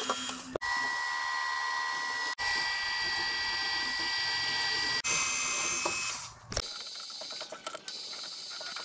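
Drill press cutting holes in a 5 mm aluminium plate: a steady high-pitched whine of the cutter in the metal over a hiss, in short stretches that break off suddenly several times.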